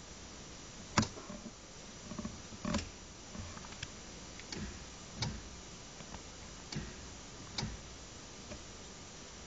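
A series of sharp clicks and knocks, about eight at uneven intervals, over a steady faint hiss.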